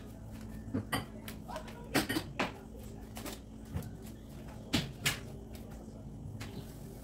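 Short sharp knocks of household items being picked up and set down on a countertop, in three small clusters: around a second in, around two seconds in, and about five seconds in.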